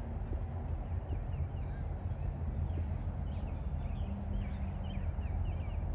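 Steady low wind rumble on the microphone, with scattered short high chirps running through it.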